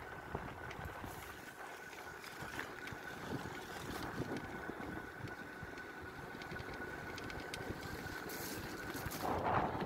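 Electric mountain bike with a hub motor riding along a wet gravel trail: tyre noise and wind on the microphone, with a faint steady high whine from the hub motor. The whine stops near the end, where a brief louder rush of noise comes.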